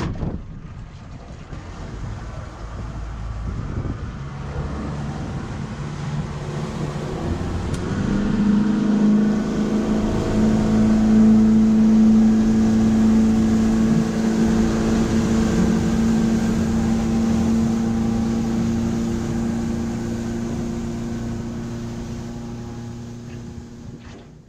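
Boat's outboard motor under way, building up over the first several seconds and rising in pitch about eight seconds in as the boat gets up to speed, then running steadily over a rush of water and wind. It fades away near the end.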